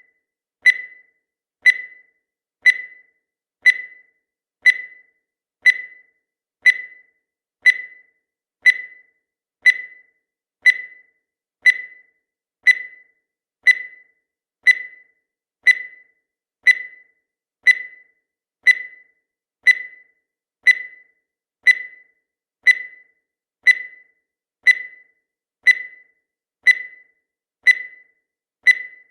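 Countdown timer sound effect: a short, sharp tick that rings briefly, repeating evenly once every second.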